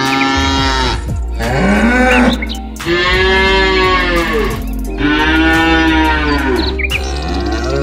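Domestic water buffalo calling with a run of long, drawn-out moos, about four in a row, each rising and then falling in pitch.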